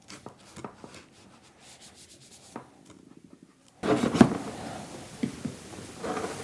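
Handling noise: rubbing and scattered small clicks and knocks, becoming louder and denser from about four seconds in.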